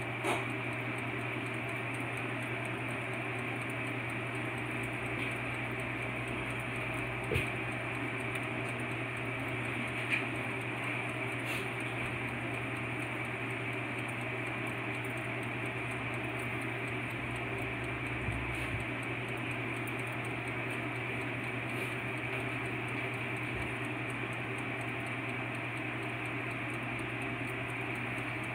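Black & Decker toaster oven running while baking: a steady electrical hum with an even hiss, and a few faint clicks.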